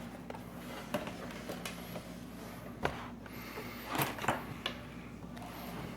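Scattered light clicks and taps of a laptop's LCD panel and plastic lid being handled, over a steady low hum.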